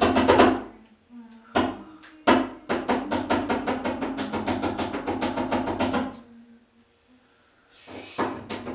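Rapid drumming in bursts, about ten strikes a second. It stops about six seconds in and starts again near the end.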